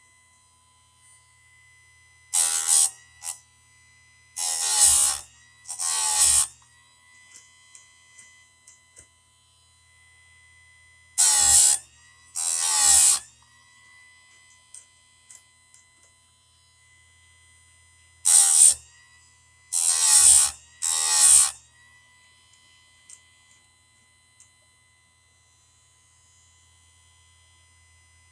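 Electric chainsaw chain sharpener running with a steady motor hum, its grinding wheel brought down onto the chain's teeth in short grinding bursts, eight in all, in groups of three, two and three.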